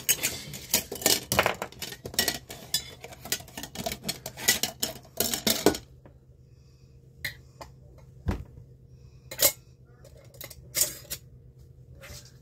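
Kitchen clatter of utensils and glass jars clinking and knocking. It is dense for about six seconds, then thins to a few separate knocks.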